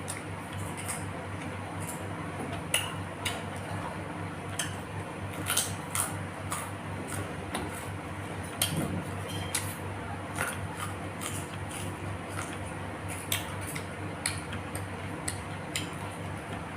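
Eating sounds: scattered light clinks and clicks of cutlery against a plate, irregular and a second or so apart, over a steady low hum.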